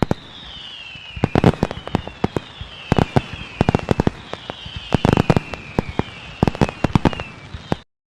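A rapid, irregular series of sharp bangs and cracks, with several high whistles that each fall in pitch over about a second and a half. It cuts off abruptly near the end.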